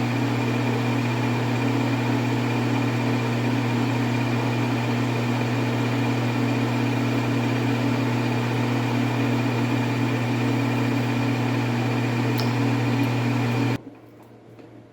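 GH-1440W metal lathe running steadily with a low, even hum during a light test cut on steel, stopping abruptly near the end and leaving only a few faint ticks.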